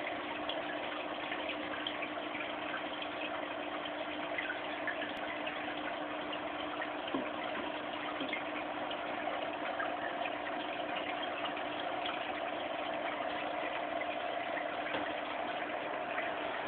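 Aquarium filter running: steady trickling, splashing water with a constant hum underneath.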